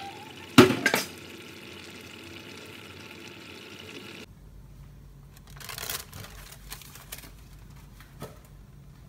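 Two sharp clanks of metal cookware about half a second in, over a steady background hiss. After an abrupt drop in the background, a short rustling scrape and a small click follow.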